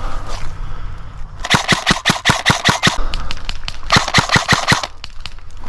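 Airsoft gun firing two rapid strings of shots, about eight clicks a second, the first about a second and a half long and the second about one second, with a short pause between them.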